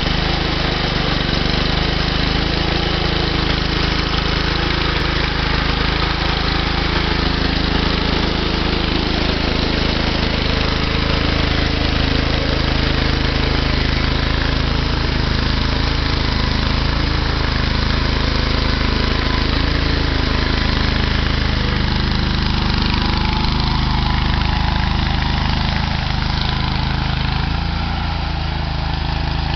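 Massey Ferguson Hydra-Speed garden tractor's engine running steadily under load as it pulls a single-bottom moldboard plow through sod.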